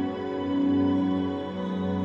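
Slow ambient new-age music of sustained, overlapping tones that swell and fade gently.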